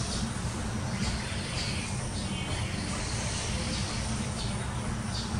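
Steady background ambience: a constant low rumble with a high hiss over it, and no clear event standing out.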